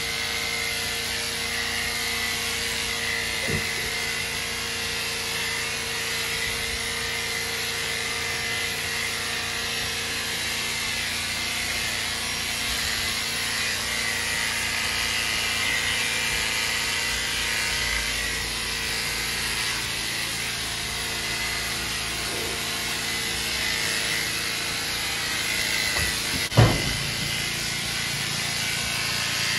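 Corded electric horse clippers running steadily with a constant whine while cutting the hair on a horse's leg. A single sharp knock comes near the end.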